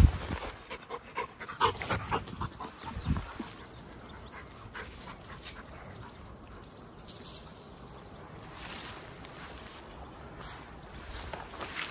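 A hunting dog close by, with a cluster of short knocks and rustles of movement in the first few seconds, loudest at the very start, then quieter. A faint steady high tone runs underneath.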